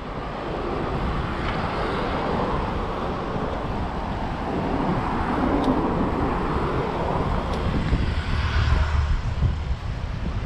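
Wind on the microphone of a camera on a moving bicycle, mixed with road traffic passing on the avenue beside the bike path: a steady rushing noise, a little louder from about a second in, with a low rumble near the end.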